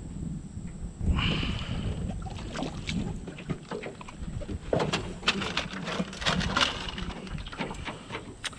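Water splashing as a hooked catfish is lifted out, then a run of sharp knocks and thumps as the fish flops on the ribbed aluminium floor of a small boat.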